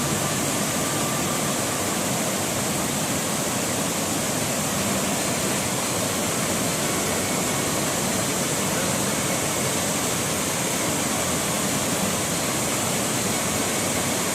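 A roughly 40-metre waterfall in heavy flow, swollen by three days of rain, makes a steady, very loud rush of falling water.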